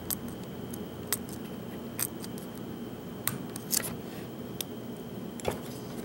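Steel lock pick ticking against the pin stack of a Master Lock Pro Series 6121 padlock as it is picked with a hook and tension wrench. Sharp clicks fall irregularly, about every second, as the security pins are worked.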